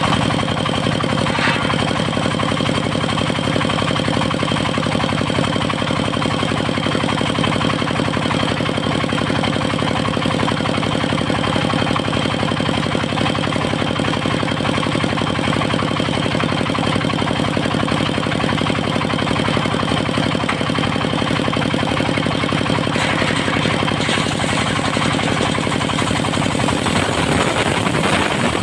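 Engine of a mobile circular sawmill running steadily at constant speed, with a rapid even pulse and a faint steady high ring over it.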